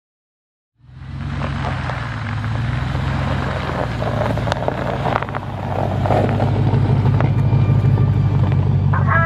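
A Chevrolet Silverado Z71 pickup truck's engine running steadily as the truck drives past through snow, with its tyres crackling over the packed snow. The sound starts about a second in and grows a little louder as the truck comes alongside.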